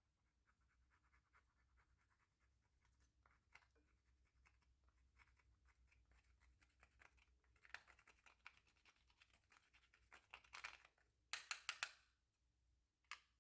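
Slime being worked by hand: a steady run of fine sticky clicks and crackles that grows louder about eight seconds in, with a quick burst of loud pops near the end.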